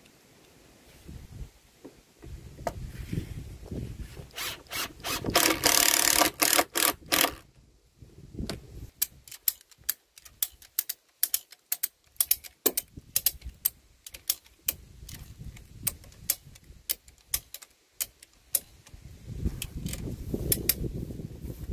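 Ratchet strap being tightened by hand: the metal ratchet's pawl clicks in a dense run about four to seven seconds in, then in sharp single clicks, a few a second, as the handle is worked back and forth.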